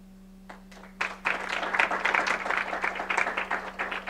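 Audience applauding: a few scattered claps, then about a second in many people clap together steadily.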